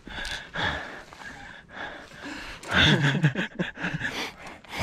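Mountain biker breathing hard, winded after a fast downhill run, with a loud voiced gasp about three seconds in.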